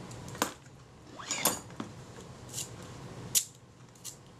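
Kodak Retina IIa's Synchro-Compur leaf shutter being handled and worked: a string of small, sharp metal clicks, with a short scrape about a second and a half in.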